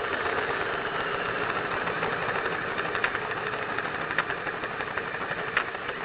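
DeWalt cordless drill running steadily with a hole saw cutting into a metal chassis tube at an angle, a thin steady whine over a rasping cut. A few sharp ticks come about three, four and five and a half seconds in. The hole saw has broken-off teeth but is still cutting.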